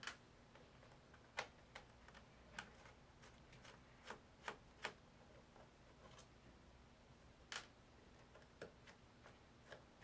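Faint, irregular small clicks and taps of a screwdriver and tiny screws against the aluminium bottom case of a MacBook Pro unibody while its bottom-case screws are taken out, about a dozen over the stretch, the sharpest about a second and a half in.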